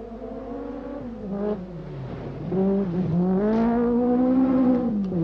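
Peugeot 205 Turbo 16 rally car's turbocharged four-cylinder engine revving hard on a gravel stage. The engine note climbs, drops briefly about three seconds in, climbs again and falls near the end as the driver lifts, getting louder as the car comes close about halfway through.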